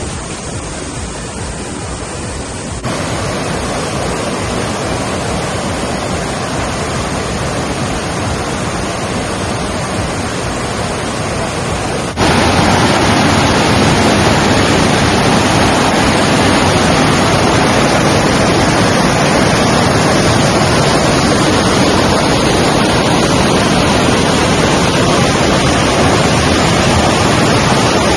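Steady rush of flowing river water, stepping up in loudness suddenly about three seconds in and again about twelve seconds in.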